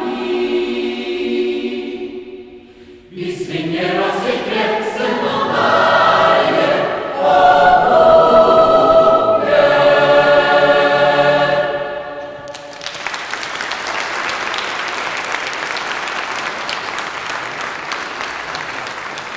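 Mixed choir singing the closing phrases of a Norwegian Christmas carol in full harmony, with a brief break about three seconds in and a long held final chord that ends about twelve seconds in. Audience applause follows for the rest of the time.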